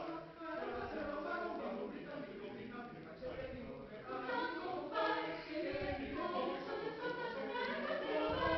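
Mixed choir of men's and women's voices singing in harmony, growing louder about five seconds in.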